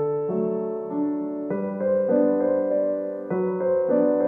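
Gentle background piano music, slow sustained notes and chords changing about every half second to a second.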